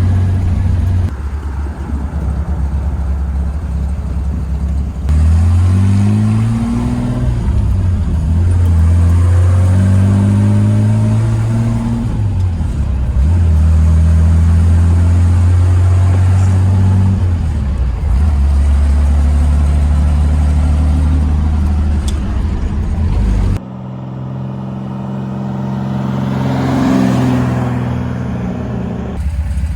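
Straight-six engine of a 1953 Chevrolet 3100 pickup running through dual glasspack exhaust. It revs up several times and holds steady between rises, with abrupt changes in the sound partway through. Near the end a brief rush swells and fades.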